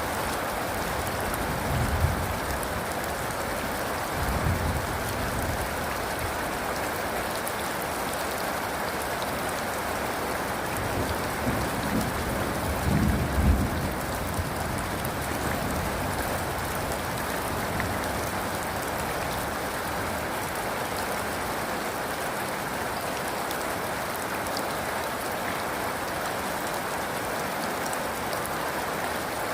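Steady rain with low rumbles of thunder a few times: short ones about two and four seconds in, and a longer, louder roll around eleven to fourteen seconds in.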